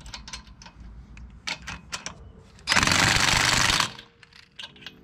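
Impact wrench running a lug nut down: a loud burst of rapid hammering lasting about a second near the middle, amid scattered clicks and knocks of tools and sockets.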